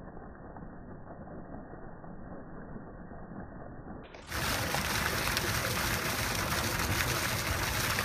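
Fountain water splashing steadily into its pool, muffled for the first four seconds, then suddenly clear and louder.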